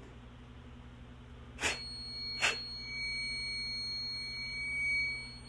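Two sharp clicks, then a smoke alarm's piezo horn comes on about a second and a half in and sounds a steady, high-pitched tone, a weird noise rather than its normal alarm.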